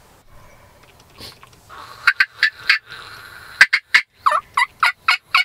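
Wild turkey calling: a short run of loud, raspy notes about two seconds in, then after a brief pause a longer run of evenly spaced notes, about four a second.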